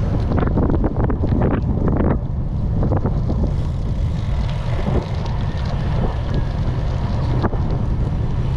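Wind buffeting a GoPro's microphone while riding a bicycle: a steady low rumble. There are a few short clicks in the first two seconds and another near the end.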